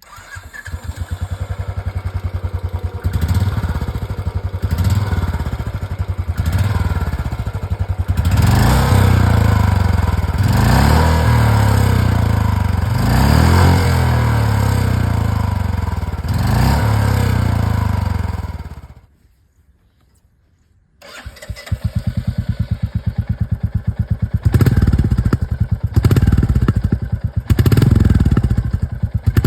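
Two Royal Enfield Bullet 350 single-cylinder motorcycles heard in turn through their exhausts: the first thumps at idle and is blipped to a rev about every two seconds. After a brief cut about two-thirds through, the second idles and is revved three times.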